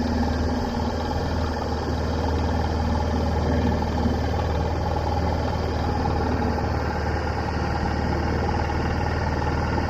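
Dinghy outboard motor running steadily, a constant low hum with fainter higher tones over it.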